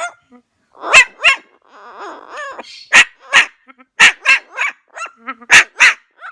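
Parrot imitating a dog's bark: short, sharp barks in quick pairs and triplets, with a rougher, raspy call about two seconds in.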